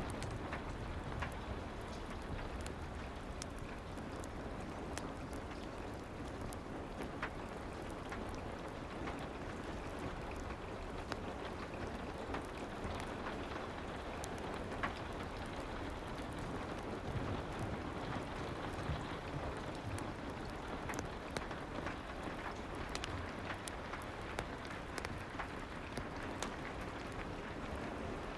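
Soft rain ambience mixed with a fireplace: a steady, even hiss of rain with many small, sharp crackles and pops scattered throughout.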